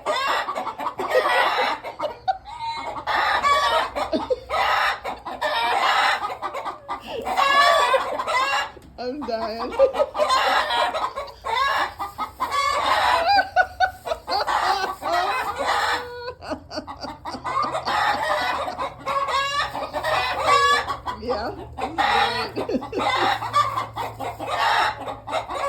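Flock of backyard chickens clucking and squawking noisily, with a rooster crowing among them: a commotion set off by a dog coming into the coop.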